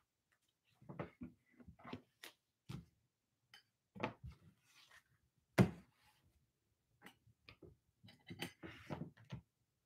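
Trading cards in plastic toploaders being handled and set down on a table: scattered light clicks and taps, the loudest a sharp knock a little past halfway, with a quick run of taps and rustling near the end.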